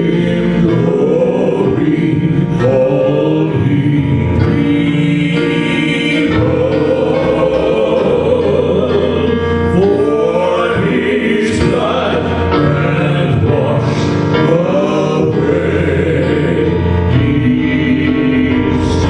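Gospel praise-and-worship song: voices singing together over musical accompaniment.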